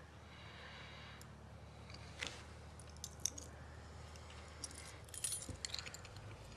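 Quiet room tone with faint rustling and a few small, sharp clicks and clinks, the busiest stretch coming past the middle.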